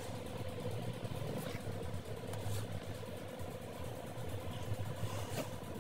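A low, steady hum with a few faint soft rustles or knocks.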